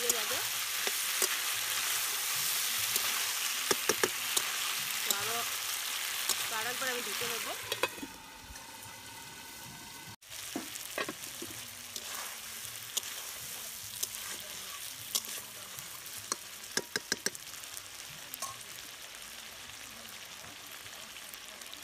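Duck meat frying in spice masala in an aluminium kadai, sizzling loudly while a spatula stirs and scrapes it, with sharp clicks of the spatula against the pan. About eight seconds in, the sizzle drops to a quieter, muffled hiss as the pan is covered. It goes on softer, with a few clusters of spatula taps.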